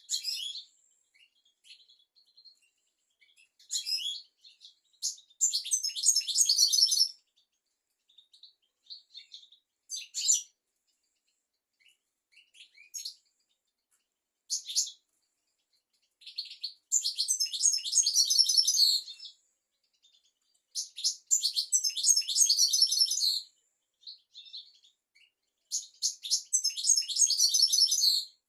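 European goldfinch singing: bouts of rapid, high twittering phrases about two seconds long, four main bouts, with short single call notes in the gaps between them.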